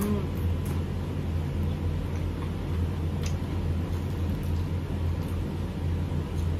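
A steady low hum with a few faint, brief clicks over it.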